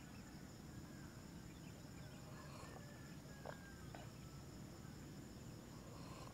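Faint outdoor ambience: a steady high-pitched insect drone, typical of crickets, over a low rumble. A few soft clicks come about three and a half to four seconds in.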